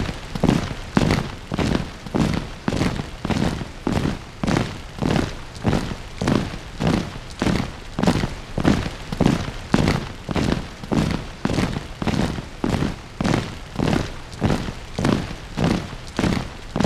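Marching footsteps on concrete: an even, steady rhythm of about two steps a second.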